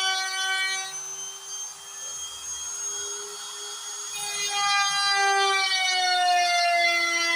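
DIY CNC router's stepper motors whining as it carves wood, the whine holding a pitch, jumping about a second in, then gliding slowly lower from about halfway as the axes change speed, over a steady lower tone.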